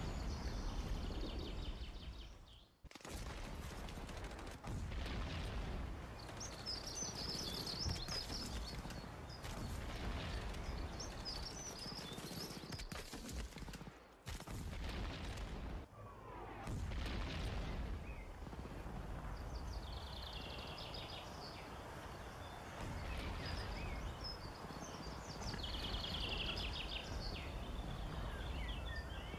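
Outdoor ambience: wind buffeting the microphone with a low rumble, while songbirds chirp and trill now and then. The sound drops out briefly twice, about three seconds in and near the middle, where the shot changes.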